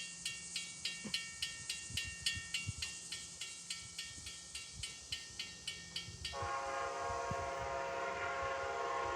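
A grade-crossing bell rings steadily at about three strokes a second. About six seconds in, the approaching Amtrak locomotive's multi-chime air horn starts one long, steady blast.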